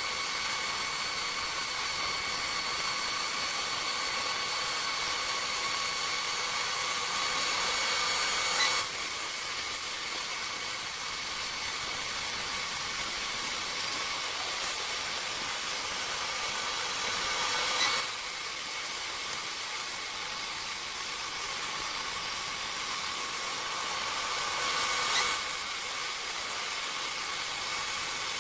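CNC milling machine cutting: a steady high spindle whine over a hiss of machining noise. The tone changes abruptly about 9, 18 and 25 seconds in.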